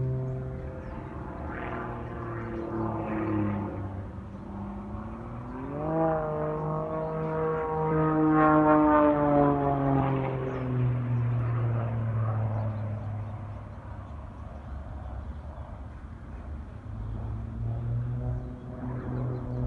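Aircraft engine droning overhead at an air show; its pitch climbs sharply about six seconds in, then slides slowly down as it passes, loudest about eight to nine seconds in.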